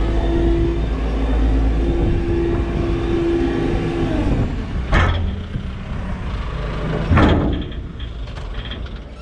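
JCB 531-70 telehandler's diesel engine running steadily, its revs dropping about four seconds in. Two heavy clunks follow, about two seconds apart, as the machine comes to a stop.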